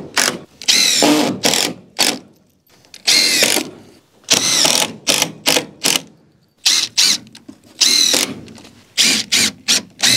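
Cordless drill driving screws into the wooden nesting box in about a dozen short runs, each rising and falling in pitch.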